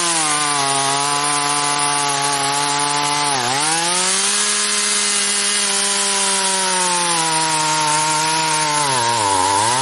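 Poulan 4620 two-stroke chainsaw cutting wood under load, its engine bogging down: the pitch holds steady, dips sharply and recovers about a third of the way in, then sags and dips again near the end.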